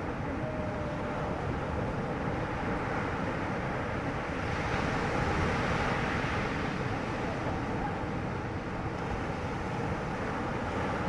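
Motorboat engine running steadily under wind buffeting the microphone and water rushing past the hull; the rush of wind and spray swells for a few seconds midway.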